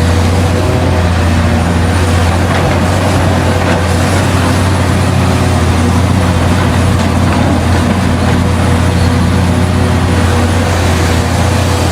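Heavy earthmoving machinery's diesel engine running steadily under load: a deep, even hum that holds one pitch without breaks.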